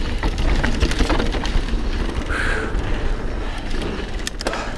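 Mountain bike riding over a rough dirt and rock trail: the tyres rumble over the ground while the bike rattles with many sharp clicks and knocks, over a low rush of wind on the microphone.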